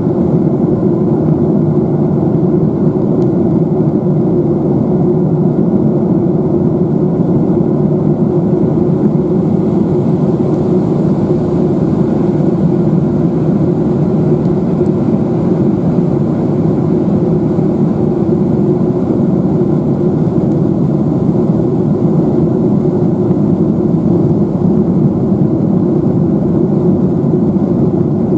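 Steady cabin noise inside a Boeing 757-200 in flight: the drone of its Pratt & Whitney PW2037 engines and the airflow over the fuselage, heard from a window seat as a low, even noise that does not change.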